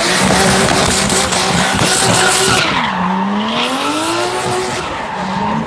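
A drift car's engine revving hard while its tyres screech in a long slide; the engine note drops about three seconds in and then climbs again.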